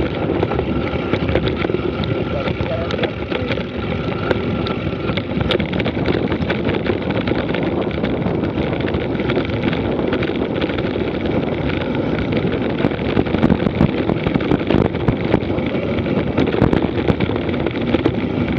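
Wind rushing over the microphone of a mountain bike descending at speed. Tyres crunch over loose gravel and stones, and the bike rattles with many small clicks, more of them in the second half.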